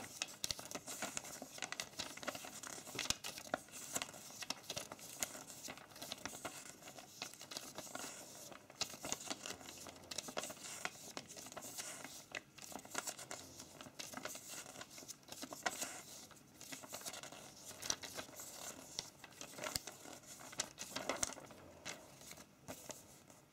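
Paper pages of a LEGO instruction booklet being leafed through: a run of faint, short rustles and page flicks.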